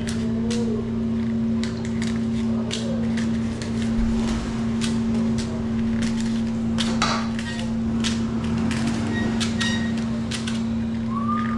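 Light clicks and rustles of paper muffin liners being separated from a stack and set into a metal muffin tin, over a steady low machine hum.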